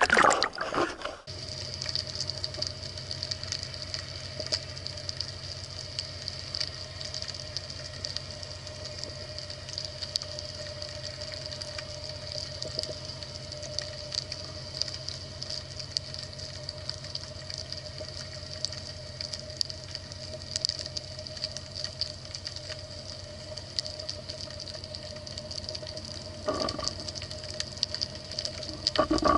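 Underwater sound heard through a camera's waterproof housing, after about a second of surface water noise. It is a steady hum with faint crackling and ticking, and a brief sound near the end.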